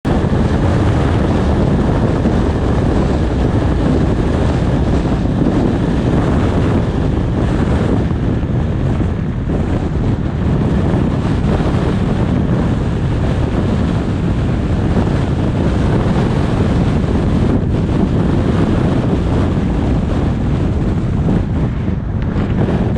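Steady wind buffeting on a GoPro action camera's microphone, with road noise from a car being driven.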